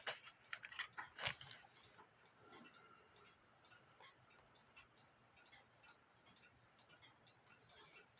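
Near silence with faint ticking and a few small sharp clicks, the louder clicks in the first second and a half, as of small metal parts being handled.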